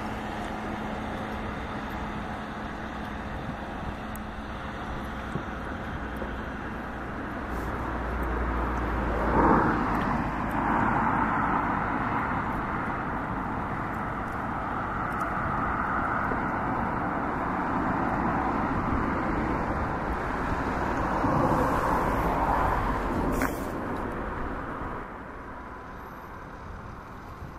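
Fireworks display heard from a distance: a steady wash of outdoor noise that swells a few times, with a single sharp crack near the end.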